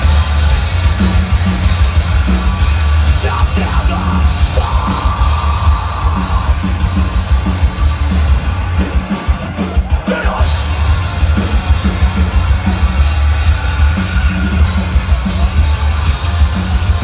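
Live metal band playing loud over a festival PA: heavy drums and distorted guitar, recorded from the crowd.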